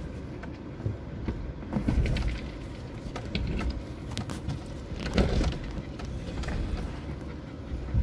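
Suzuki Jimny creeping down a steep, rocky four-wheel-drive track, heard from inside the cabin: a low rumble with irregular knocks and thuds as the tyres roll over loose rocks and the body jolts, loudest about two seconds and five seconds in.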